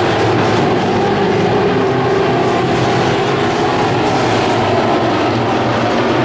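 IMCA Sport Modified dirt-track race car engines running at speed in a steady, loud din.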